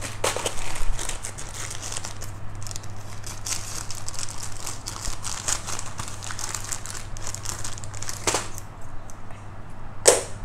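Plastic poly mailer bag crinkling and rustling as it is cut open with scissors and handled, with a few sharper, louder crackles, the loudest near the end.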